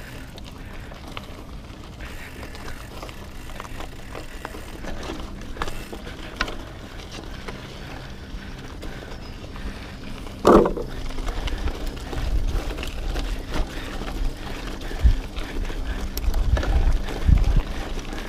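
Mountain bike rolling over a loose gravel and dirt trail, tyres crunching and the frame rattling, with a brief loud sound about ten seconds in. In the second half, as speed builds downhill, wind buffets the microphone in low gusts.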